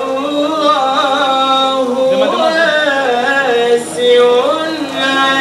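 A man reciting the Quran in the melodic, drawn-out tajwid style, holding long notes and ornamenting them with wavering turns.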